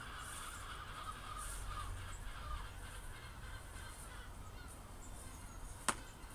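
Outdoor background with bird calls through the first couple of seconds, then a single sharp knock from the plastic wheelie bin near the end.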